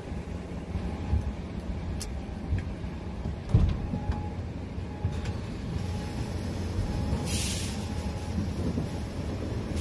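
Steady low rumble heard from inside a truck cab, with a sharp click, a louder knock about three and a half seconds in, and a short hiss a couple of seconds before the end, as the driver climbs out of the cab.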